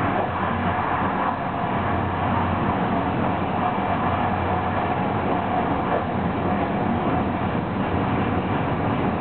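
Steady rumble and rush of an ÖBB Eurocity train running at about 200 km/h: wheels on the rails and air noise, heard through the glass from inside the coach.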